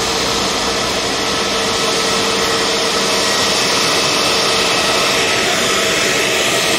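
Steady jet turbine whine over a loud rushing noise from aircraft on the apron, growing a little louder partway through.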